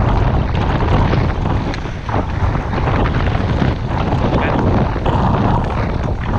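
Wind buffeting the microphone of a downhill skier's action camera, a loud steady rumbling rush, with skis hissing over packed, groomed snow.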